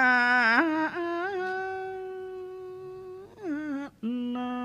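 A Buddhist monk's voice chanting a Northern Thai verse sermon in drawn-out sung syllables: one long held note that slowly fades, then a new sliding phrase about three seconds in and another held note near the end.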